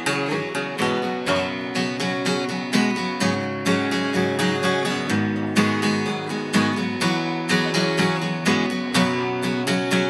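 Acoustic guitar strumming chords in a steady rhythm, an instrumental stretch of a song with no singing.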